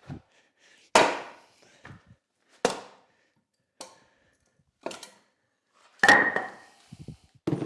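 A series of about six sharp wooden knocks from hand tools being handled, the loudest about a second in and about six seconds in, the second of these with a brief metallic ring.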